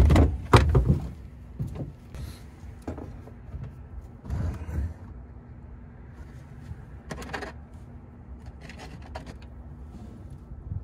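Handling noise in a pickup bed: a cluster of loud scuffs and knocks in the first second, then scattered clicks and scrapes as a plastic Milwaukee Packout mounting plate is set down and shifted into place on the bed liner.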